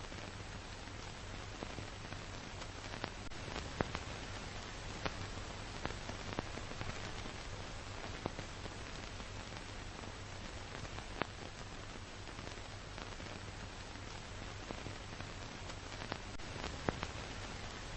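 Steady hiss with scattered clicks and pops over a low hum: the surface noise of an old film transfer with no recorded sound.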